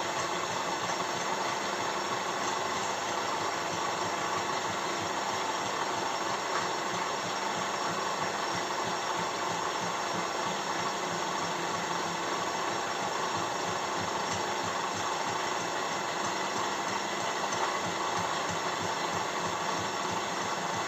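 Vertical drilling machine running at a steady speed, its motor and drive giving an even mechanical hum with several steady tones.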